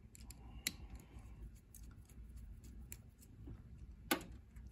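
Faint small clicks and scrapes of a screwdriver and fingers working a plastic type K thermocouple plug as it is taken apart, with a couple of sharper clicks.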